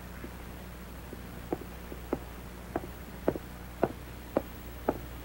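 Footsteps: short, sharp steps about two a second, over a low steady hum.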